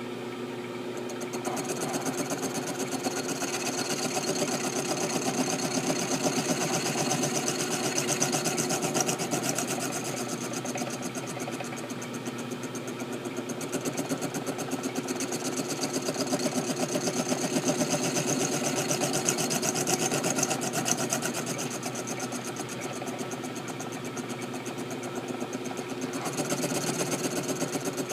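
Machine tool running while it cuts slots into an M1911 pistol slide: a steady motor hum with a high-pitched cutting hiss that starts about a second in, stops briefly near the middle and again near the end, and then resumes.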